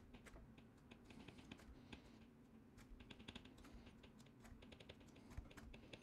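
Faint, irregular clicks and taps of a stylus writing on a tablet screen.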